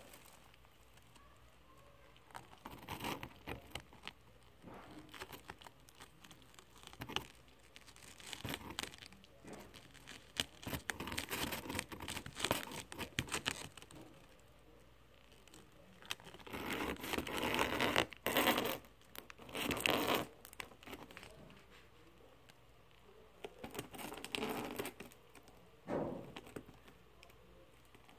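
A cat shifting and rubbing against plastic air-pillow packing and the cardboard box: irregular spells of crinkling, rustling and scraping with quieter gaps between, the loudest stretch about two thirds of the way through.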